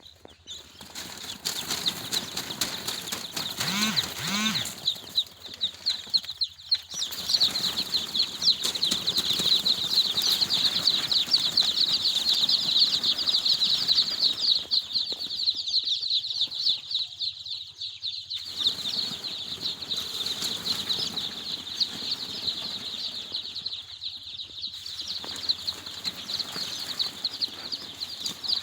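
A crowd of young poultry chicks peeping together, a dense unbroken chatter of high, short cheeps. About four seconds in, two short lower-pitched calls rise through it.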